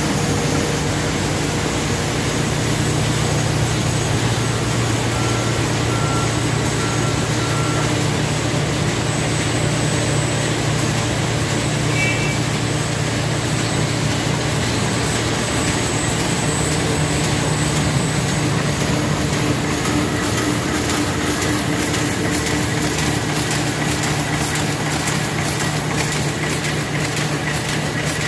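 Triumph 5QT flat-handle paper bag machine running in production, feeding kraft paper web through its rollers: a loud, steady mechanical din over a constant low hum. A fast, even clatter of fine ticks grows stronger over the last several seconds.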